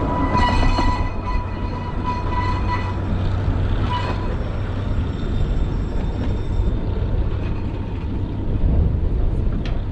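Narrow-gauge railway carriages rolling past and away round a curve, their wheels squealing in a steady high tone for the first few seconds before it dies out about four seconds in. A low rumble runs under it throughout.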